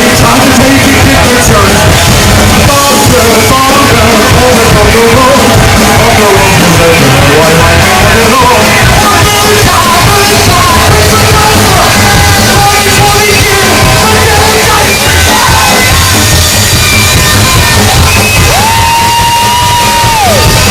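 Rockabilly band playing loud and live, with a singer's yelled vocals over the band. Near the end a single high note is held steady for about two seconds.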